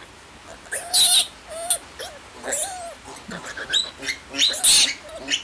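Young piglet squealing in distress, a series of short, shrill squeals, while held on its back and cut for castration. The loudest cries come about a second in and again near the end.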